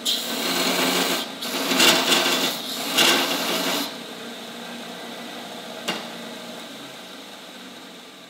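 Wilton Square Wheel 2x72 belt grinder, slowed to about 1500 surface feet per minute with a 4-inch drive wheel, grinding a metal bar in three passes of about a second each, with a rattle because the machine isn't bolted down. After that the belt runs on without work and slowly fades, with one click about six seconds in.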